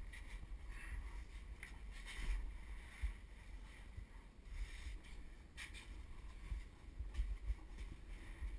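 Uneven scraping and rustling of clothing and gear against narrow sandstone walls, with low bumps and rumble from the handheld camera being jostled, and a sharp click about halfway through.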